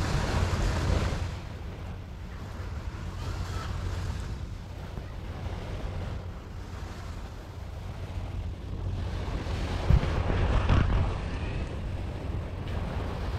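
Wind buffeting the microphone over small waves lapping at the shore, with one sharp knock about ten seconds in.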